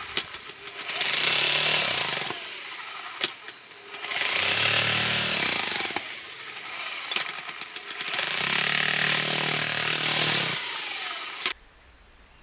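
Electric drill boring into soil, run in bursts of a second or two with quieter pauses between. It cuts off abruptly near the end.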